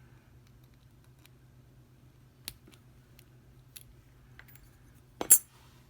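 Small metal lockpicking tools being handled on a work surface: a few faint clicks, then one sharp clack about five seconds in.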